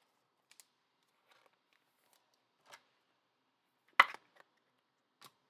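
Trading cards being handled between reveals: a few faint slides and clicks of card and plastic, with one much sharper snap about four seconds in and a lighter click near the end.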